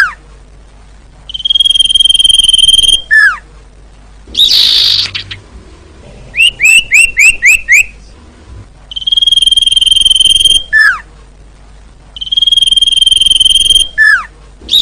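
Sirtu (cipoh, common iora) calling: long, steady, clear whistles held on one pitch, each ending in a quick falling slur, repeated several times, with a short harsh burst and a fast run of about six rising chirps in the middle. A recorded lure call of the kind used to draw wild birds in.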